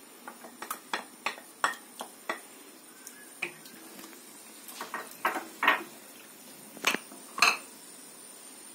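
Wooden spatula knocking against the side of a metal cooking pot while stirring diced carrots into broth. The knocks come irregularly, a run of light taps and then louder ones, with the two loudest near the end.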